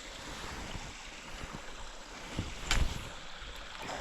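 Mountain stream water running steadily, with one sharp knock about two-thirds of the way in.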